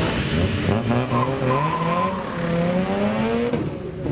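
Two drag-race cars, an Audi estate and a first-generation VW Golf, launching from the start line and accelerating hard. The engine notes climb steadily in pitch, then drop sharply near the end as the cars shift gear.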